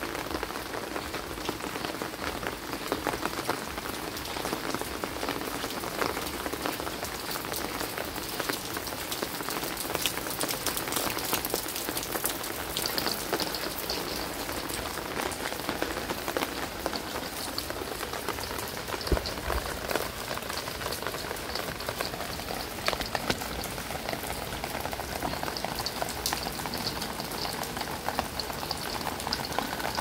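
Steady rain falling on a wet concrete lane and walls: an even hiss dotted with the ticks of many single drops.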